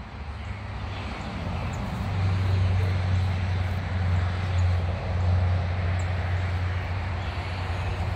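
A steady low engine hum, swelling about two seconds in and then holding.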